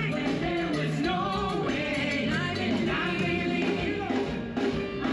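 Music with a singing voice carrying a melody.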